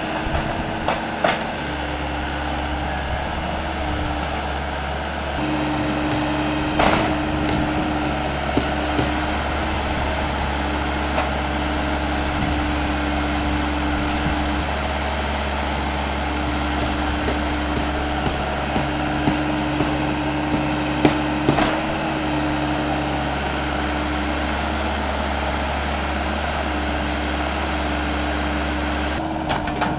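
Lonking CDM6060 excavator's diesel engine running steadily under working load while it digs, with a few sharp knocks from the bucket and arm.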